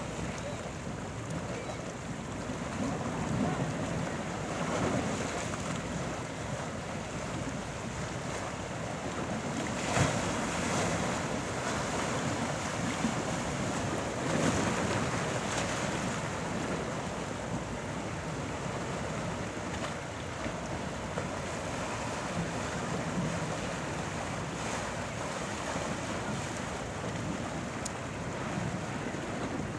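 Sea waves breaking and washing ashore: a continuous rush of surf that swells louder several times, with one sharper crash about a third of the way in, and wind blowing over the microphone.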